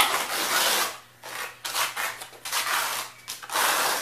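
Hand trowel scraping wet cement-based overlay texture across a sample board, spreading the poured material thin in sweeping strokes. A long scrape at the start, several short ones, then another long one near the end.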